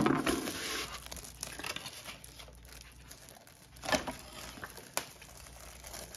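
Clear plastic wrapping on an air fryer's wire rack crinkling as the rack is handled, loudest in the first second. Two short sharp clicks come about a second apart near the end.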